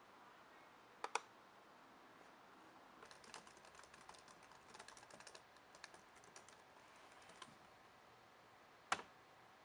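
Faint typing on a computer keyboard, a few seconds of quick key taps. Two quick clicks come about a second in, and one sharper click comes near the end.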